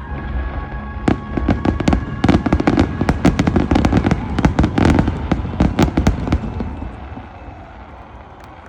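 Fireworks bursting in a rapid barrage of bangs and crackles that thins out and dies away about two-thirds of the way through.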